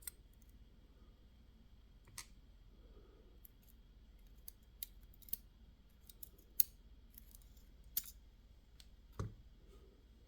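Scattered light metallic clicks and taps of small lock parts and tools being handled while sorting the pins of a disassembled pin-tumbler lock. The clicks are irregular, with a duller knock near the end.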